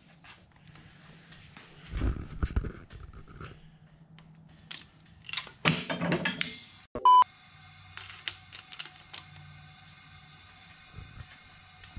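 Metal clanks and knocks from a lever-type valve spring compressor being worked on a Vortec 4.3 V6 cylinder head, twice, a few seconds apart. About seven seconds in comes one short, loud, high beep, followed by faint steady tones.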